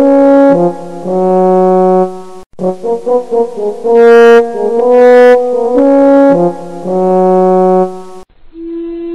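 Music: a brass instrument playing a slow melody of long held notes. Near the end it cuts off and a quieter held note begins.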